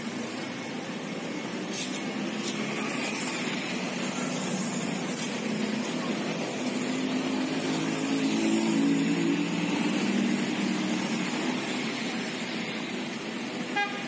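Engine of heavy road-construction machinery running steadily, getting louder for a few seconds in the middle and then easing back. Near the end there is a short horn beep.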